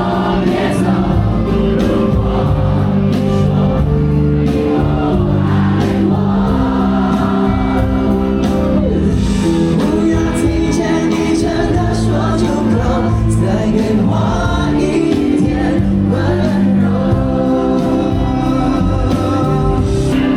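A song performed live on stage: singing over instrumental backing with held low notes.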